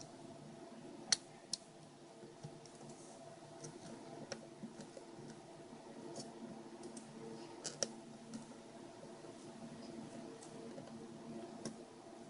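Light, scattered clicks and taps of small plastic parts being handled as ribbon cables are fitted into a GPS unit's locking-clip connectors, over a faint steady hum. The sharpest clicks come about a second in and again near the middle.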